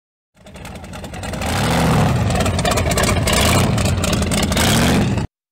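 A car engine revving hard several times, its pitch rising and falling with each rev, amid rapid crackling; it builds up over the first second and cuts off suddenly near the end.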